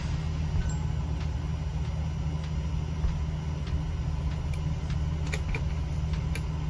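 Air conditioner running with a steady low hum, with a few faint clicks in the second half.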